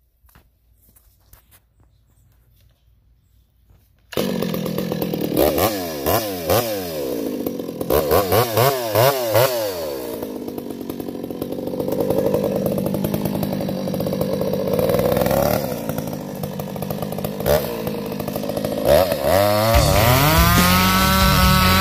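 Chainsaw comes in suddenly after about four seconds of near quiet, revving up and down several times, then runs steadily, growing louder with a deeper note near the end.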